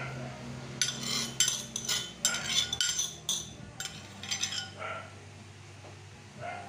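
A metal spoon scraping and clinking against a dish in several short bursts while spreading cream mixture over a graham tray.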